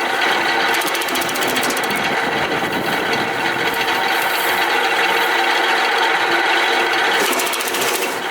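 Electric wood chipper with a 5.5 kW motor and four-knife rotor running, giving a loud, steady mechanical clatter made of fast, even ticking.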